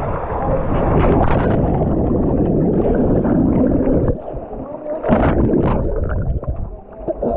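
Rushing, churning water close to an action camera during a ride down a natural rock water slide, dense and gurgling, easing briefly a little past halfway before surging again.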